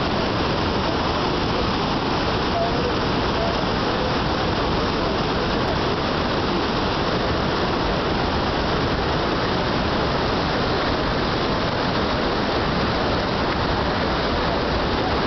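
River water rushing steadily, a continuous even roar.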